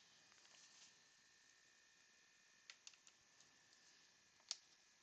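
Near silence with a few faint clicks and light taps from trading cards being handled: three close together a little under three seconds in, and a sharper one about four and a half seconds in.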